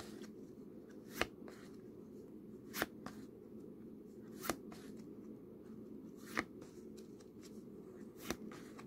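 Board-game cards being leafed through by hand, one card at a time, with five light snaps spaced a little under two seconds apart as cards are slid off the stack.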